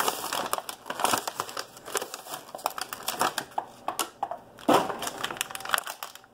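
Plastic blister and cardboard backing of a carded action figure being torn open and handled: irregular crinkling and crackling, loudest a little before five seconds in.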